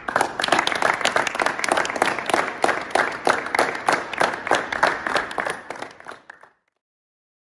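A small audience of children applauding, with many hands clapping at once. The applause thins out and stops about six seconds in.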